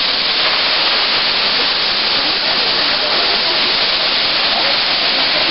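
Steady, even rush of a tall plunge waterfall, Cascata do Caracol, falling into its gorge.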